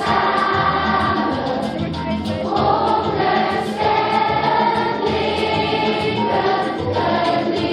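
Children's choir singing a song with instrumental backing, the sung notes held and changing every second or so.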